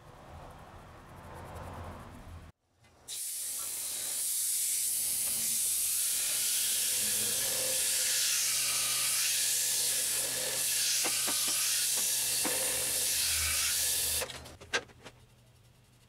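Wooden bowl spinning on a woodturning lathe with a hand-held pad pressed against it: a steady, loud hissing rub over the low hum of the lathe. It stops suddenly near the end, followed by a single click.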